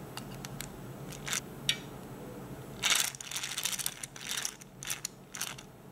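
Plastic toy fishing rod's reel being cranked by hand: a few single clicks, then a run of irregular plastic clicking and rattling from about halfway through.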